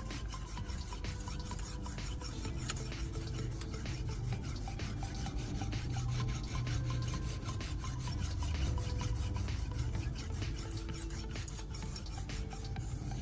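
Steel knife blade stroked back and forth on sandpaper in many short, repeated scraping strokes, sharpening and refining the edge.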